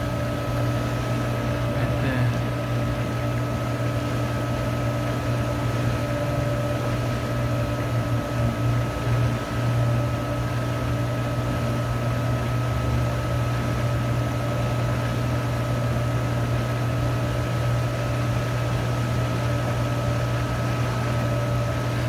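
Pool pump running with a steady electric-motor hum while it draws air in through a leaking PVC fitting on its plumbing.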